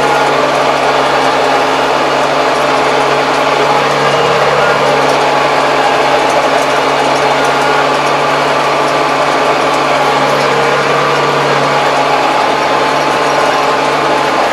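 Kubota tractor's diesel engine, about 75 hp, running steadily under load while tilling with a rotary tiller, heard from inside the cab.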